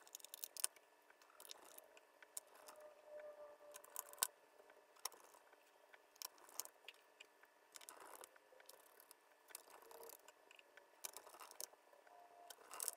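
Small screwdriver driving screws into an Akai MPC Element controller's casing: faint, scattered clicks and light scrapes as the screws are turned in.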